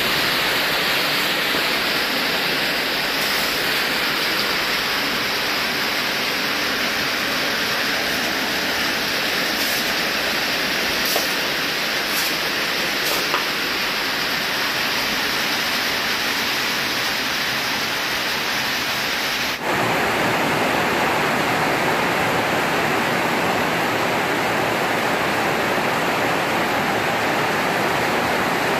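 Heavy rain falling steadily on the roof, a constant rushing hiss. About two-thirds of the way in, the sound changes suddenly and becomes fuller and a little louder.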